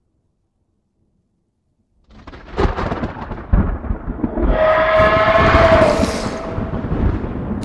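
Silence, then about two seconds in a deep, thunder-like rumble with several heavy thuds begins. In the middle a held high tone with overtones rises over the rumble for a couple of seconds, and then the sound eases off.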